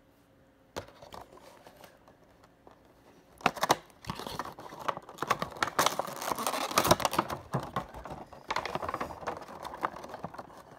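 Funko Pop window box being opened: cardboard and clear plastic packaging crinkling and rustling in a dense, crackling run that starts a few seconds in, after a quiet stretch with a click or two.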